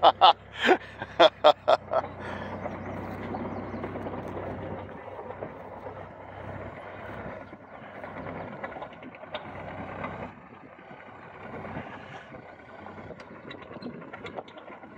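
Kubota KX040-4 mini excavator's diesel engine running as the machine tracks across dirt. A quick run of loud clatters comes in the first two seconds, and the engine sound drops lower after about five seconds.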